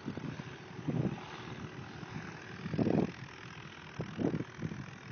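Airplane climbing away after takeoff, its engine a distant steady drone. Irregular low rumbles of wind buffet the microphone, the strongest about three seconds in.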